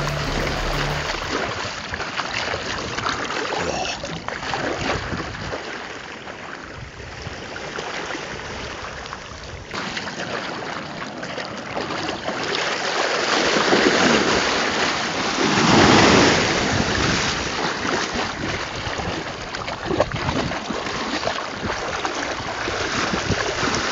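Shallow surf washing up and back over the sand, with wind buffeting the microphone; one wash swells louder about two-thirds of the way through.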